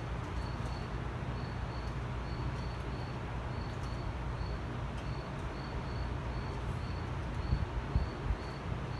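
A cricket chirping steadily, about two short high chirps a second, over a low steady rumble. A few light clanks come near the end.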